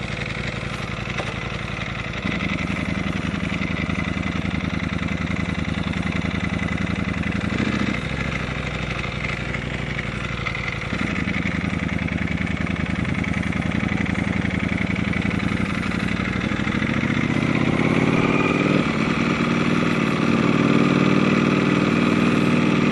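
2018 Ducati Panigale V4 Speciale's V4 engine running on the move: it gets louder about two seconds in, eases back near eight seconds, picks up again about eleven seconds in, and rises steadily in pitch over the last several seconds as the bike speeds up.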